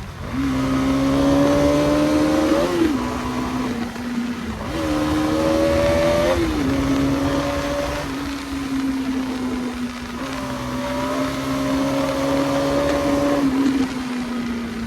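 Bajaj Pulsar NS200's single-cylinder engine running under way on the road, its pitch climbing and dropping a few times with throttle and gear changes. Wind and road noise run underneath.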